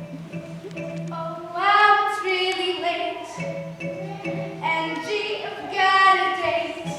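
A young female voice singing a musical-theatre song in phrases of held notes, over backing music with a steady low note.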